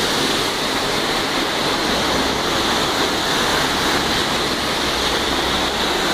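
Heavy rain and running floodwater make a steady rushing hiss. A low rumble joins about two seconds in as a car drives through the flooded street.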